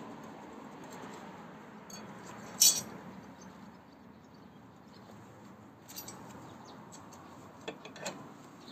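Hand tools working the bolts of a scooter's rear wheel and brake caliper: a short burst of metal clicking about two and a half seconds in, the loudest sound, then a few lighter metal clinks near the end, over a steady background hiss.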